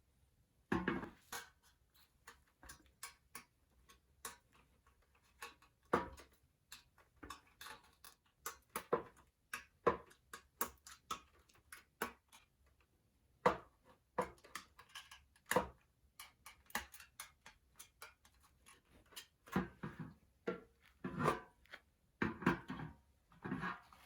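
Irregular clicks, taps and light clanks of thin stainless steel sheet being worked with hand tools. Near the end there are a few longer, denser scraping or cutting passes.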